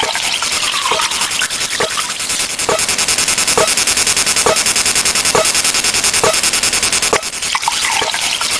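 Dense, harsh noise of stacked sound effects, with a short pitched blip a little under once a second.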